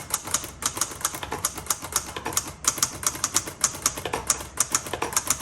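1956 Hermes Rocket portable manual typewriter being typed on at a steady pace: a quick run of crisp key and typebar clicks, several a second, broken by a few short pauses.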